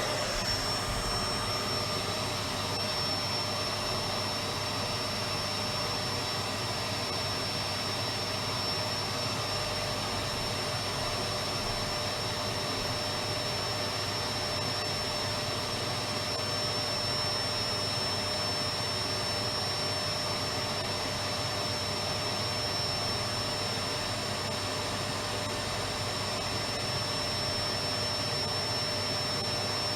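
Electric vacuum cleaner running steadily, a constant rush of air with a steady motor whine.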